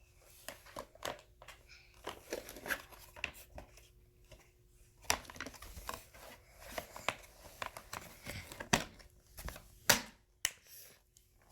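Plastic parts of a toy play kitchen being handled and pushed together: irregular clicks, knocks and crinkling, with two sharper knocks a little before the end.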